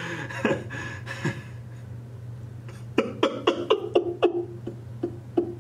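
A man laughing: a quick run of short laughs, about four a second, in the second half, each dropping in pitch, over a steady low hum.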